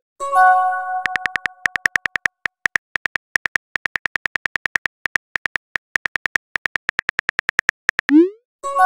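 Simulated phone-keyboard typing clicks, a rapid run of short ticks as a text message is typed out. Near the end a quick rising whoosh sends the message, followed by a short multi-note chime. A similar chime rings out for about a second at the start.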